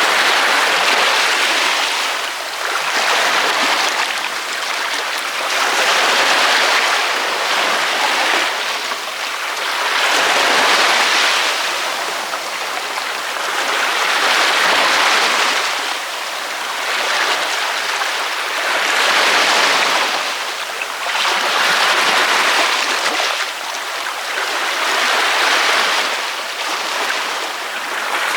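Ocean waves breaking on a beach: a hissy wash of surf that swells and fades every few seconds as each wave breaks and runs back, with little deep rumble.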